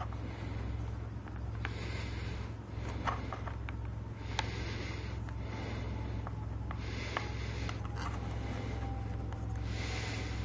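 Rubbing, scraping and small clicks of plastic housing parts being handled and fitted together by hand, over a steady low hum.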